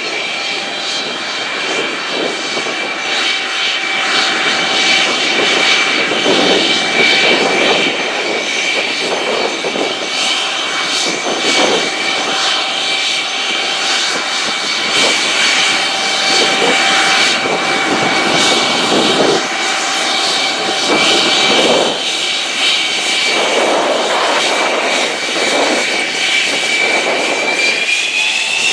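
Lockheed U-2's single General Electric F118 turbofan running at low power as the aircraft taxis: a steady high whine over rushing jet noise. The whine rises in pitch near the end.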